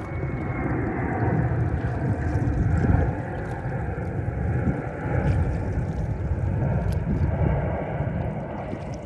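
Water rushing and gurgling along the hull of a rowboat under oars, with wind buffeting the microphone. The rumbling noise swells and eases every couple of seconds.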